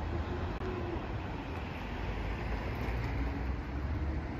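Steady low rumble of road traffic, with a faint wavering engine hum.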